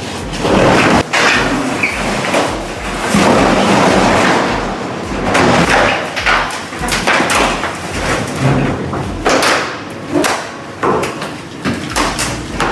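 Heavy machinery crushing and breaking material: a string of loud crashing thuds and impacts, irregularly spaced, over a rough grinding noise, with a steady low pulsing underneath that drops out for a moment about two thirds of the way through.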